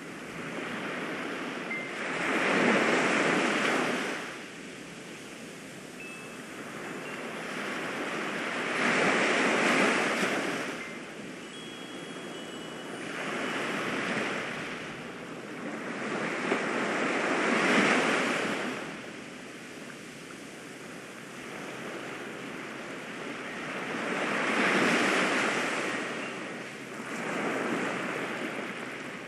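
Ocean surf: waves washing in and drawing back in slow swells, about six of them, some louder than others.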